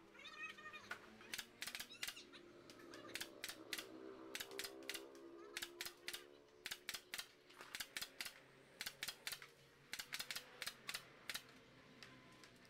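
Sharp taps and clicks in quick irregular runs of several strokes each, as bamboo seat slats are fastened onto the bench frame by hand.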